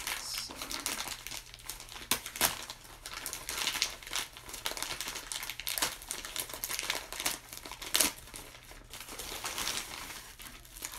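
Plastic mailer bag crinkling and rustling with irregular sharp crackles as it is opened and handled by hand.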